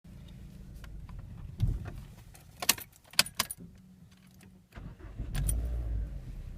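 Mazda 3 (BL) running, with a low rumble and a few sharp metallic knocks from the left side of the car, most about two to three and a half seconds in. The rumble grows louder near the end.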